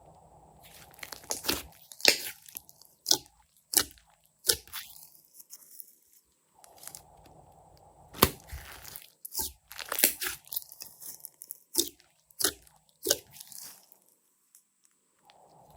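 Glossy slime with mixed-in add-ins being squeezed and kneaded by hand, giving irregular sticky clicks, pops and crackles.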